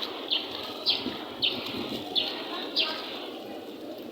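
A bird giving a short, high, falling chirp over and over, about two a second, over steady street background noise.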